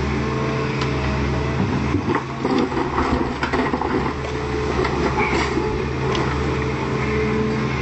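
Volvo EC210C excavator's diesel engine running steadily under work, with scattered knocks and clatter, busiest from about two to four and a half seconds in.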